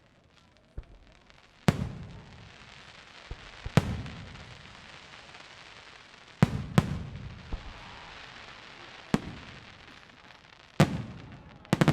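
Fireworks display: aerial shells bursting in loud bangs a second or two apart, some in quick pairs, each trailing off in a rumbling echo and a fizzing hiss.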